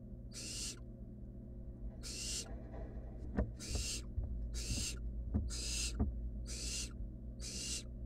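Barn owl nestlings giving their hissing, snore-like begging calls, one short hiss about every second. A few knocks and scrapes from the chicks shifting on the wooden nest-box floor come around the middle, over a steady low hum.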